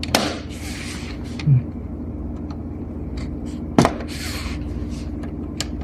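Plastic casing of a portable screen being pried apart with a blade: a few sharp clicks and short scrapes as the snap clips are worked loose, over a steady low hum.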